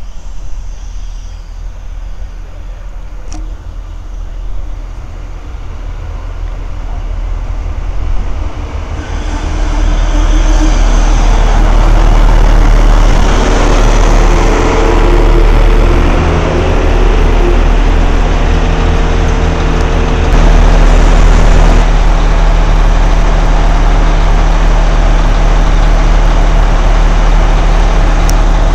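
Irish Rail 29000 class diesel multiple unit running into the platform, growing loud from about nine seconds in. Its underfloor diesel engines then give a steady drone.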